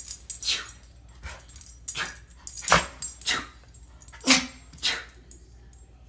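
A small white curly-coated dog sneezing repeatedly: a run of about six short, sharp sneezes, some with a snort in them.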